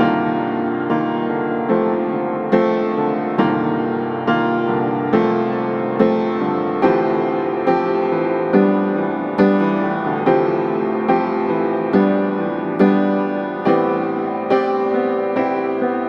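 Background music: a gentle piano tune with notes struck at a steady, even pace.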